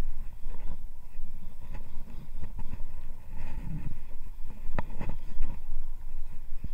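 Steady low rumble and wind aboard a small fishing boat at sea, with a few sharp knocks, the loudest a little under five seconds in.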